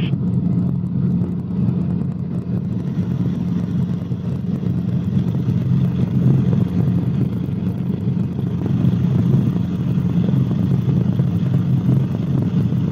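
Cabri G2 helicopter's engine and rotor noise heard inside the cabin: a steady low drone.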